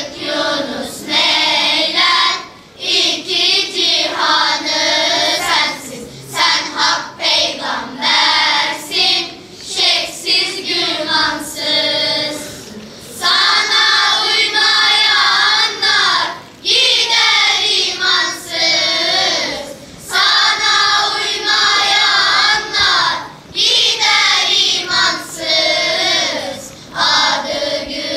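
Children's choir singing together, phrase after phrase with short breaks between.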